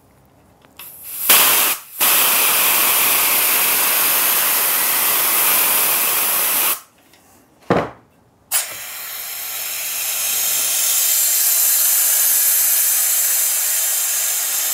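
Compressed air hissing out of a paint pressure pot as its 50 PSI is released through the valve. A short burst comes about a second in, then a steady hiss that stops for a couple of seconds midway, with one brief puff, before starting again and swelling.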